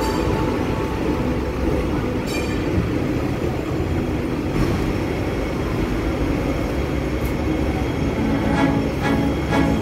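Hong Kong double-decker tram running along its street tracks, heard from on board: a steady low rumble of wheels on the rails.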